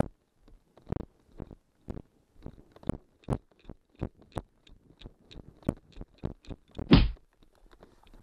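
Quick footsteps running over grass, picked up as a fast series of thuds and rustling knocks on a body-worn camera, with one heavier thump about seven seconds in as the runner reaches the boy on the ground.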